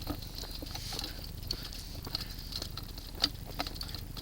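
Footsteps crunching irregularly over rough ground, a few steps a second.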